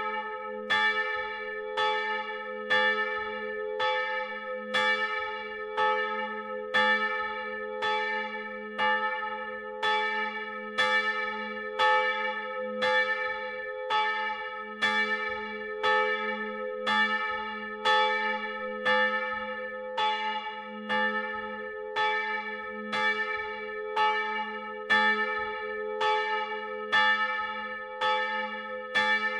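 Swinging bronze church bells rung together, heard close up in the belfry. The clapper strikes come in an uneven rhythm of roughly one to two a second, over a steady hum that lingers between strokes.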